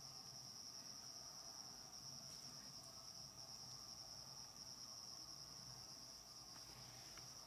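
Faint, steady chirring of crickets, with a few faint clicks.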